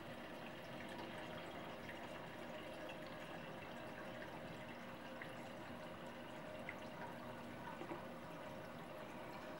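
Medisana nebulizer humidifier running: steady bubbling and trickling of water in its nebulizer chamber, with a faint steady hum underneath.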